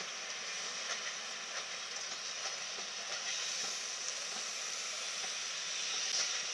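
Rake of steam-heated passenger coaches rolling slowly past on departure: a steady hiss with scattered faint clicks from the wheels on the track.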